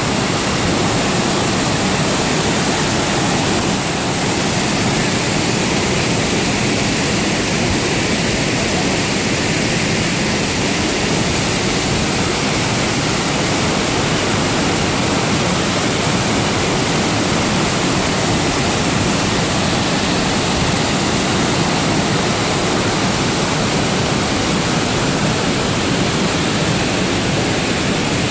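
Burney Falls: the main cascade and the many smaller streams from the cliff face pour into the pool with a loud, steady rush of water.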